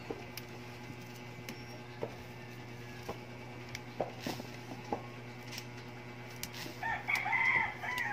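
Fresh purple yardlong beans snapped by hand into short pieces, a series of sharp, crisp snaps a second or so apart, with the pieces dropping into a plastic basket. Near the end, a short wavering call in the background is the loudest sound.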